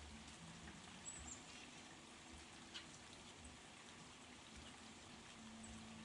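Faint light rain pattering steadily, with a couple of sharp ticks and a brief high chirp about a second in.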